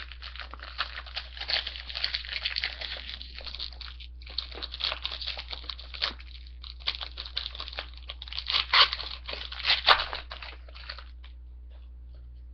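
A trading card pack wrapper being torn open and crinkled. It comes in several stretches of crackly rustling with short pauses, gets loudest near the end and then stops.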